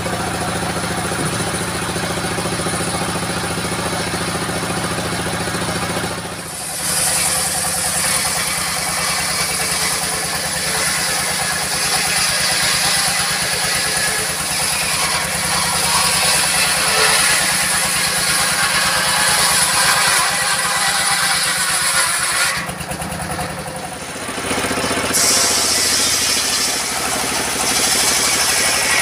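Old diesel engine running steadily, driving a circular saw blade that is cutting lengthwise through logs for most of the time. The sound changes abruptly twice, about six seconds in and again about 23 seconds in.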